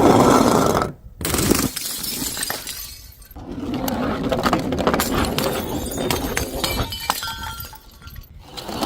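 Glass bottles shattering and crunching, with shards tinkling, in a few separate loud bursts that stop abruptly between them.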